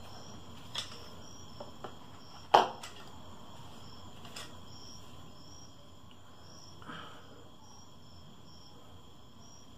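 Quiet work of waxing hot forged steel on an anvil: a single sharp knock about two and a half seconds in and a few lighter clicks. Faint high chirps repeat evenly, about one and a half a second.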